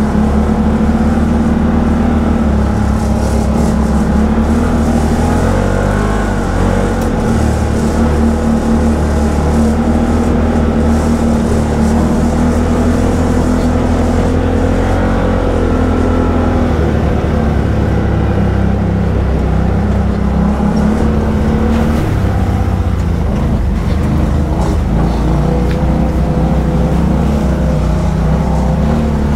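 ATV engine running steadily under way, its pitch rising and falling a little with the throttle.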